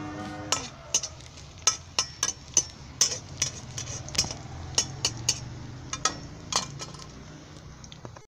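Slotted metal spatula stirring sliced onions in oil in a black iron karahi, clinking and scraping against the pan in many sharp, irregular strikes.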